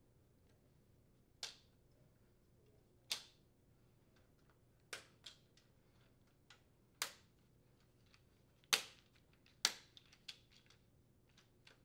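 Plastic upper-rack adjustment assembly of an Electrolux dishwasher clicking and snapping against the wire dish rack as it is hooked on and pressed into place: a string of sharp, separate clicks with smaller ticks between, the loudest about nine seconds in.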